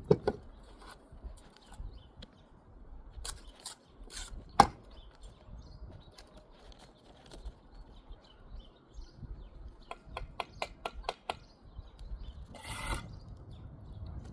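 Mason's trowel work on brick and mortar: scattered sharp taps and scrapes, with a quick run of about eight taps some ten seconds in and a short scrape near the end.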